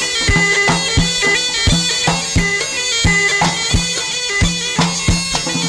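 Tunisian mezoued (bagpipe) playing a reedy melody over a steady drone, with a steady hand-drum beat underneath: mezwed folk music.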